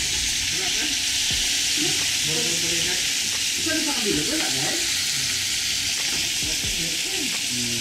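Fish slices sizzling steadily as they fry in hot oil in a frying pan, with metal tongs moving and turning the pieces.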